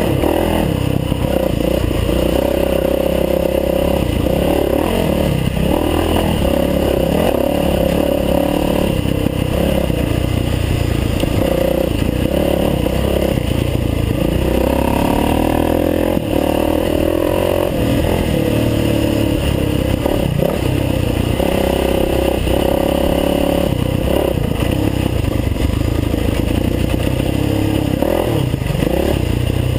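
Dirt bike engine running hard on a trail ride, its pitch rising and falling again and again with the throttle.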